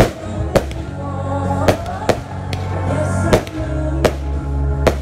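Consumer fireworks firing: about eight sharp bangs at uneven spacing as stars launch and burst overhead, over loud music whose heavy bass beat comes in past the middle.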